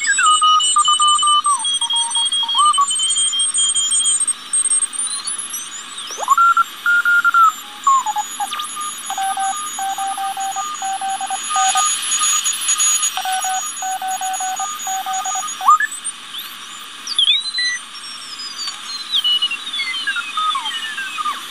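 Audio from a one-transistor super-regenerative shortwave receiver being tuned across the 40-metre amateur band, played through a small speaker. Hiss runs under whistling tones that slide up and down in pitch as the tuning sweeps past signals. In the middle, a Morse code signal keys on and off for several seconds.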